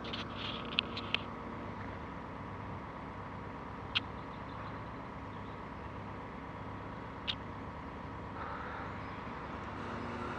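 Mobile crane's engine running steadily with a low hum. A few short, sharp knocks or clinks cut through it: a quick cluster in the first second or so, then single ones about four and seven seconds in.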